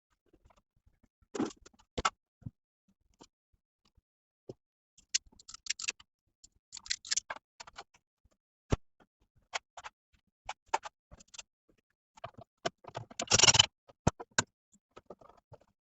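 Scattered light clicks and ticks with a few short scraping rustles, the loudest about three-quarters of the way through: small hand work on a fire alarm panel, with tools, fixings and cable being handled.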